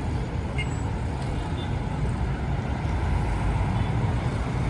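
Steady city road traffic: a continuous low rumble of car and bus engines and tyres passing on the bridge.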